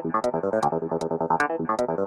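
Electronic, trance-style background music: a fast synth arpeggio over a steady high tick about four times a second.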